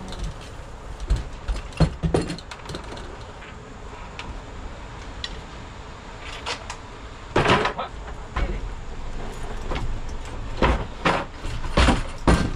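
Scattered knocks and clunks of a hand truck being wheeled over a doorway threshold while a storm door is held and swung. The loudest clatter comes about halfway through, with several more knocks near the end.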